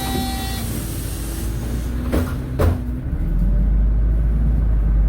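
City bus heard from inside: steady low engine and road rumble, two sharp knocks a little after two seconds in, then the low engine rumble grows louder from about three seconds in.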